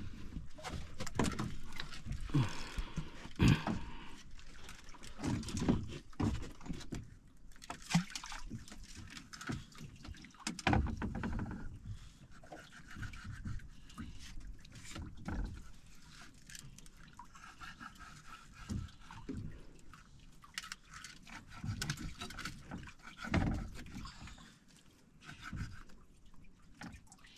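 Scattered knocks and bumps on a small wooden outrigger boat as people handle fishing lines aboard, over faint lapping water.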